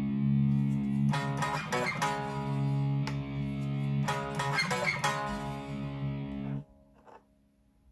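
Gibson SG electric guitar played through an amplifier on its neck pickup. A chord rings on and is strummed again about a second in and again about four seconds in, then the sound cuts off abruptly near the end.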